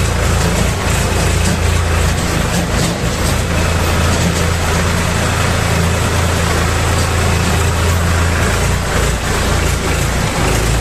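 Farm tractor's diesel engine running steadily under load as it crawls over a rocky streambed, with knocks and rattles from the rough ground. The engine note shifts about eight seconds in.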